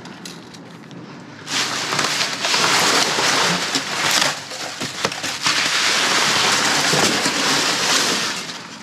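Plastic trash bags and debris rustling and crackling loudly as they are rummaged through, starting about a second and a half in.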